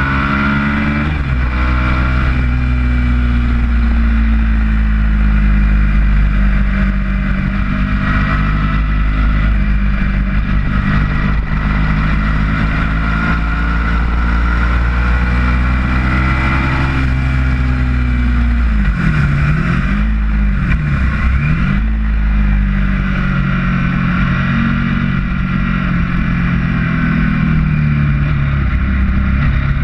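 Ducati V-twin sport motorcycle engine at high revs, recorded onboard with wind rushing over the microphone. The engine note climbs and drops with gear changes near the start, holds steady along the straight, then swoops down and up several times about two-thirds of the way through as the rider changes down for a corner.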